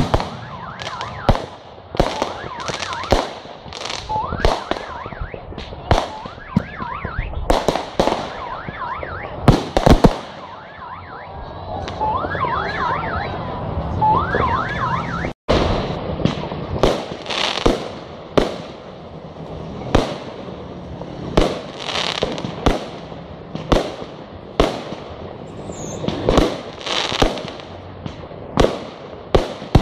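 New Year's Eve fireworks display: aerial shells bursting one after another, each a sharp bang, a few every second or two. Through the first half, repeated rising whistles from whistling shells sound between the bangs.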